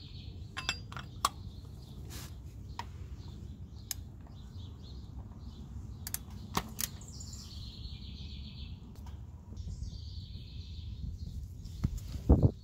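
Scattered metal clicks and clinks of a cup-type oil filter wrench on an extension bar, worked onto a spin-on oil filter to loosen it, over a low steady rumble. Birds chirp in the background, and a loud low thump comes near the end.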